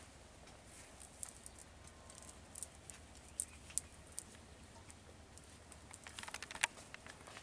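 Faint scattered ticks and light rustles as a cast net is handled and gathered up, with a short cluster of clicks about six seconds in.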